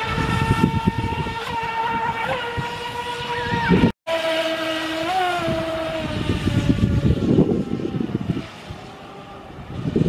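The electric motor of a Feilun FT011 4S RC speedboat running at speed, a steady high-pitched whine. It cuts out briefly about four seconds in and returns at a lower pitch, fading somewhat near the end, with gusty wind rumble on the microphone underneath.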